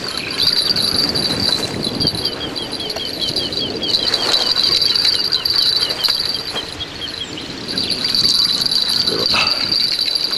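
Insects trilling in a steady, high-pitched chorus, with a quick run of fainter chirps about a third of the way in.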